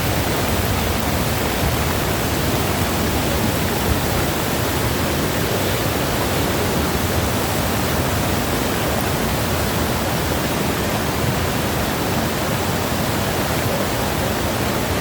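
Heavy rain and rushing floodwater: a loud, steady, even rushing noise.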